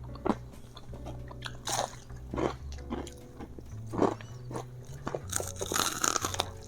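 Close-up crunching and chewing of crisp Dorito-crusted fried chicken, in irregular bites with a cluster of crunches near the end, over a steady low hum.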